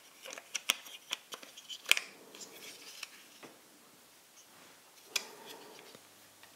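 Plastic clicks and taps from a Fluke 101 multimeter's case parts and circuit board being handled and fitted back together: a quick run of sharp clicks in the first few seconds, the loudest about two seconds in, then a single click near the end.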